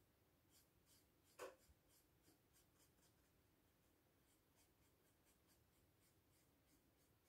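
Near silence, with the faint soft swish of a watercolour brush stroking paper in a run of short strokes, and one louder tap about one and a half seconds in.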